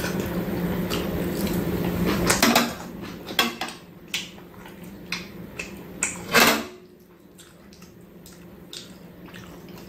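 Metal chopsticks clicking and tapping against a stainless-steel plate and tray, a handful of scattered clinks while food is picked up and eaten. A low steady hum sits under the first couple of seconds.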